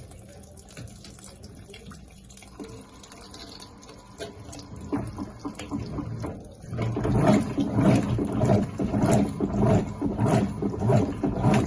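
Electrolux LTA15 top-load washing machine on its first rinse: water running in at first, then from about seven seconds in the agitator swishing the clothes back and forth through the water, about two strokes a second.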